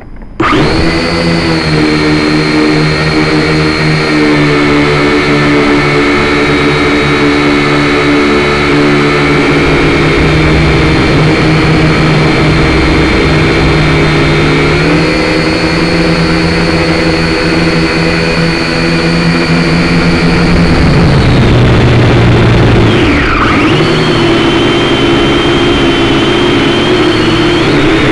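Syma X5C quadcopter's four small brushed motors and propellers whining, picked up close by the drone's own onboard camera. The whine starts suddenly as the motors spin up, holds steady, steps up in pitch about halfway, then dips and swoops back up about three-quarters of the way through.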